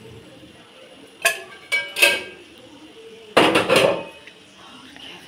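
Metal kitchen utensils and pots clanking: three ringing knocks a little over a second in, then a longer, louder clatter about three and a half seconds in.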